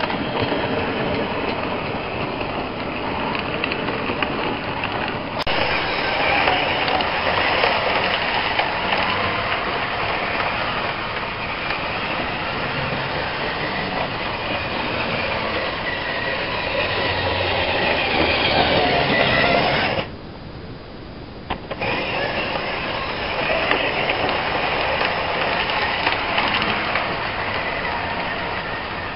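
OO gauge model train running along the track, a loud, steady mechanical noise that drops away for about two seconds some twenty seconds in, then picks up again.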